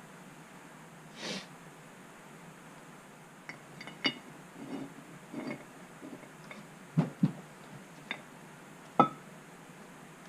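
Metal vise parts knocking and clinking together as the Wilton vise is reassembled by hand: a scatter of sharp single clinks, some with a brief ring, the loudest about seven and nine seconds in.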